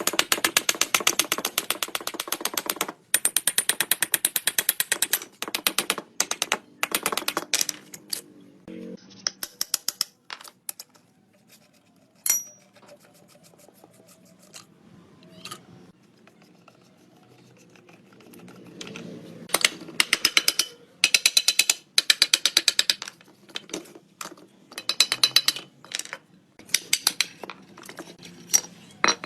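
Hand ratchet wrench clicking in quick runs of rapid ticks, working fasteners on an old 125 cc motorcycle, with a quieter pause in the middle.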